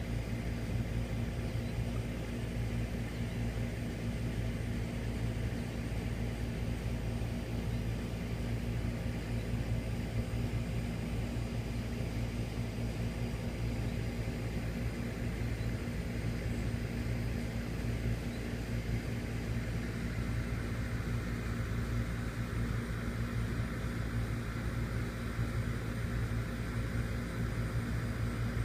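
Steady low machine hum with a hiss over it, unchanging throughout.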